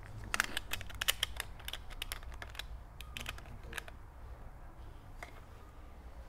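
A quick, irregular run of sharp clicks lasting about three and a half seconds, then only a low background hum.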